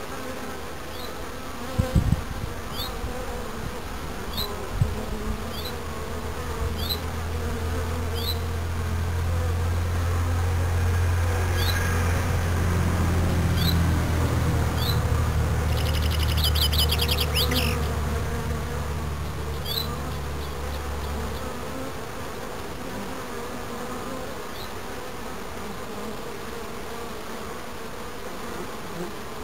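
Honeybees buzzing steadily at the hive entrance as foragers land and take off. A deeper low hum builds up in the middle, is the loudest thing heard, and stops about two-thirds of the way through.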